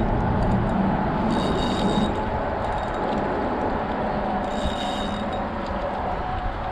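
Steady rushing noise of wind on the microphone while a spinning reel is cranked to bring in a hooked fish, with two short high whirs about a second and a half and five seconds in.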